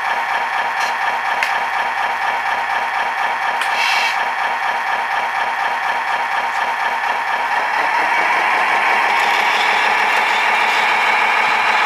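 Radio-controlled Mack dump truck running, a steady mechanical sound that grows louder and higher about eight seconds in as the truck starts to move.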